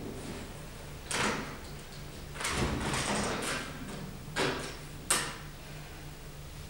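A few scattered rustling and shuffling noises and a short sharp knock about five seconds in, with no music: a pianist shifting on the piano bench and settling before starting to play.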